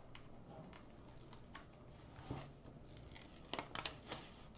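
Paper release sheet being peeled back from a sticky diamond-painting canvas: faint rustling and small crackles, with a cluster of sharper crackles near the end.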